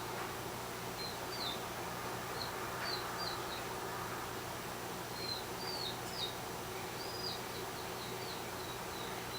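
A small bird chirping: short high chirps in small groups, each gliding down, over a faint steady low hum.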